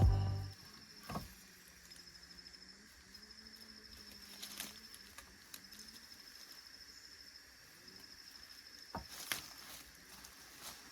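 Quiet forest ambience: an insect trilling in fast pulsed runs, with a few sharp snaps or knocks, the loudest just after a second in and about nine seconds in. Background music fades out at the very start.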